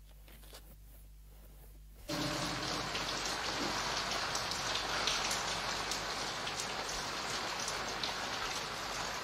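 A faint low hum, then steady rain cutting in abruptly about two seconds in: a dense even hiss full of fine ticks.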